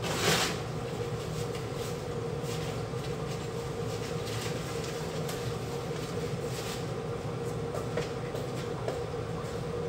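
A paper towel is pulled and torn from a wall dispenser, briefly and loudly, right at the start. Under it runs the steady rumble and hiss of the gas stovetop: burners lit under a lidded pot of boiling water and a frying pan of melting butter.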